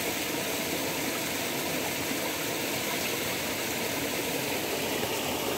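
Fast-flowing river water swollen by monsoon rain, a steady, unbroken rush.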